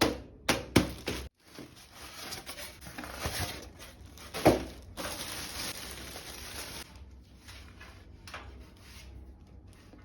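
Plastic packaging being handled: crinkling and rustling, with a few sharp knocks in the first second and a louder knock about four and a half seconds in.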